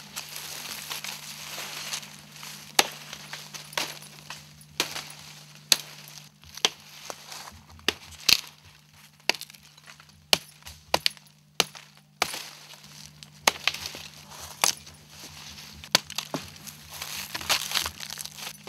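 Dry leaf litter rustling and crunching underfoot, with many sharp cracks of sticks and branches breaking at irregular intervals. The rustling is heaviest at the start and near the end.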